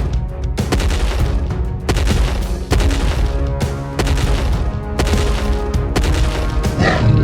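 Background music with heavy, booming drum hits over held tones.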